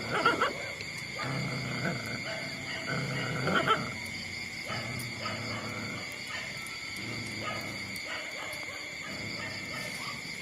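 Young puppies making short cries and grunts, the two loudest near the start and about three and a half seconds in, over a steady high-pitched tone.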